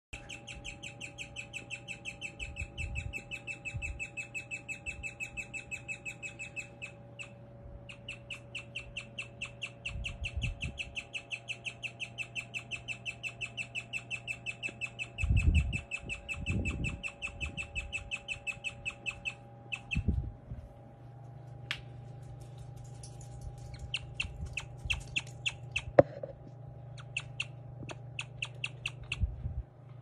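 Guinea pig chirping: a long run of high, bird-like chirps at about four or five a second, with a short break about seven seconds in. The run stops about twenty seconds in, after which the chirps come sparser. A few low thumps and one sharp click are mixed in.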